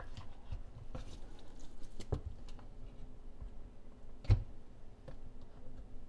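Hand and cloth wiping out the plastic filter sump at the bottom of a dishwasher tub, with scattered light taps and rubbing. One louder knock about four seconds in.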